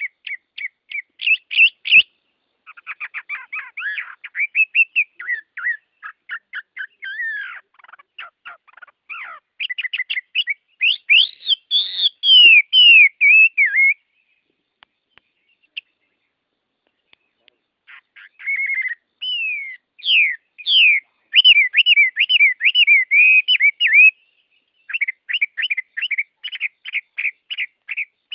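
Songbirds singing in quick series of whistled, sliding notes and rapid trills, phrase after phrase, with a pause of a few seconds about halfway through.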